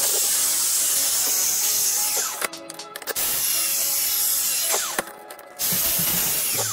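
Background music over a steady loud hiss; the sound drops away abruptly twice, briefly each time.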